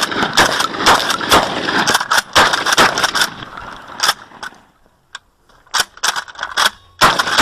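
12-gauge shotgun firing in quick strings: a fast run of sharp shots over the first three seconds, a near-quiet stretch, then a few more shots, the loudest about seven seconds in.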